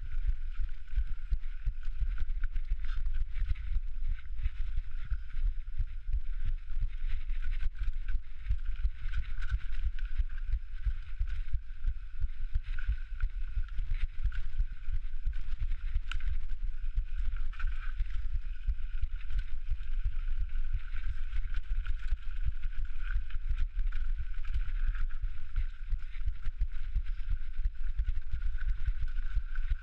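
Mountain bike descending a rough, rocky trail: a continuous low rumble full of quick, irregular knocks and rattles, with a steady thin whine above it, picked up by a microphone meant to carry the rider's heartbeat.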